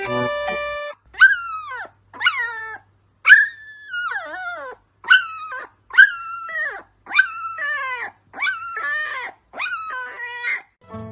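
Husky puppy howling: a run of about nine short, high calls, roughly one a second, each falling in pitch.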